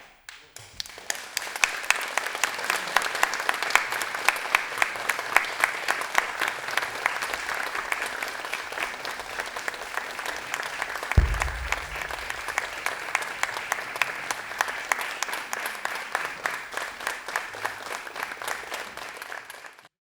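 Audience applauding. A single low thump stands out about eleven seconds in, and the applause cuts off abruptly near the end.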